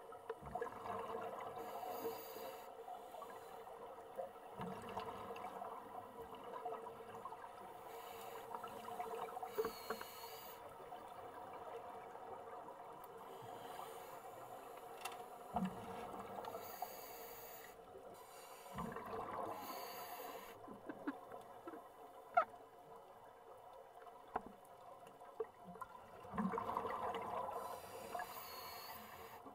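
Underwater sound of scuba divers breathing through their regulators, with bursts of exhaled bubbles every several seconds over a steady underwater murmur, and a few sharp clicks.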